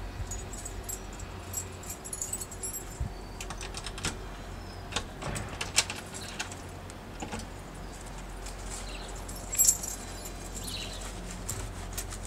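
Keys jangling and clicking in a front-door lock as it is unlocked: scattered small metallic clinks and clicks, with a sharper clatter about ten seconds in, over a steady low background hum.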